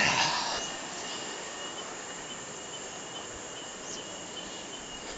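Steady outdoor ambience with a thin, even high insect buzz, after a loud burst of noise on the microphone fades out in the first half second.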